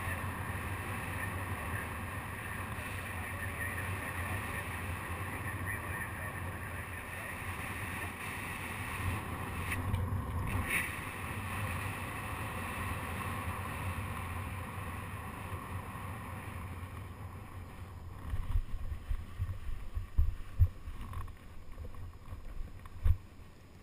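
Steady wind rushing over a GoPro HD2 camera in paraglider flight. In the last few seconds, irregular low thumps and bumps as the pilot touches down on the ground.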